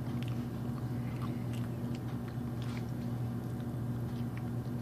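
A person chewing a soft mouthful of macaroni and cheese mixed with banana, with scattered small wet mouth clicks, over a steady low hum.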